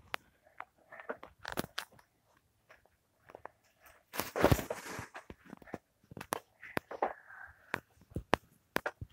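Irregular light clicks and knocks, with a short rustle about four seconds in.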